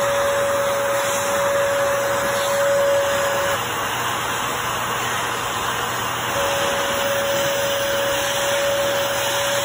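Vacuum cleaner running steadily, its floor head being drawn over a dog's fur. Its motor's whine drops out for a few seconds in the middle, then returns.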